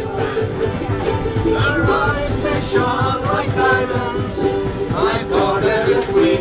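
Many ukuleles strummed together in chords, with voices singing along over a low rumble.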